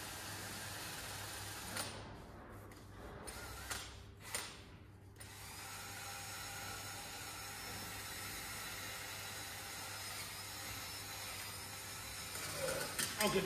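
Small power drill with a buffing attachment cleaning old gasket off the engine's sump mating face. It cuts out and restarts twice in the first few seconds, then runs steadily.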